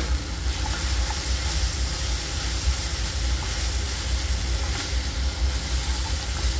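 Moringa flowers, potato and poppy-seed paste sizzling in a frying wok while a spatula stirs them, with a steady low rumble underneath.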